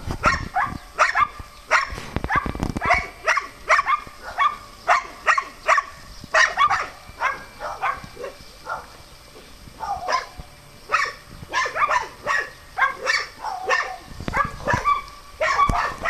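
Dogs barking repeatedly in short, sharp barks, about two or three a second, easing off for a couple of seconds about halfway through and then starting up again.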